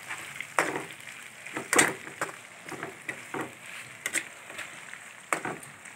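A metal spoon clinking and scraping against a metal wok as fried catfish and leeks are stirred, in irregular knocks about once a second over a low sizzle.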